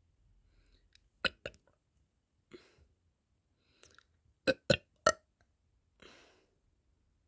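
A person burping in short, sharp burps: two about a second in, a weaker one around two and a half seconds, then three close together, the loudest, followed by a breathy exhale.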